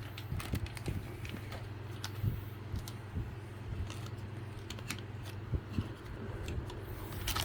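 Light, scattered clicks and rattles of small plastic model-kit parts being handled, over a steady low hum.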